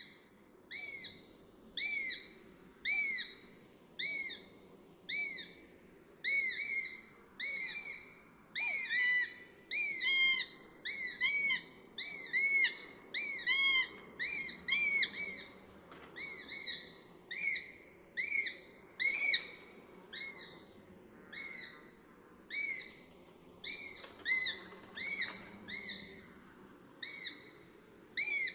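Sparrowhawk calling over and over: a short, high, arched note repeated about once a second. For several seconds in the middle the calls come in quick pairs or overlap.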